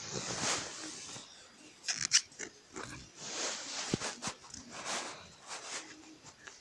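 Rottweiler snoring and breathing heavily as she drifts off to sleep, slow noisy breaths coming every couple of seconds. A couple of sharp clicks about two seconds in.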